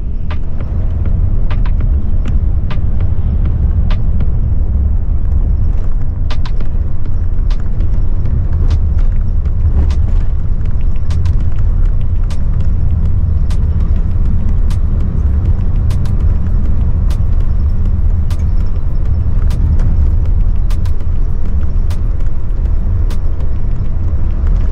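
An intercity coach on the road: a loud, steady low rumble of engine and tyres, with frequent short sharp clicks and rattles scattered through it.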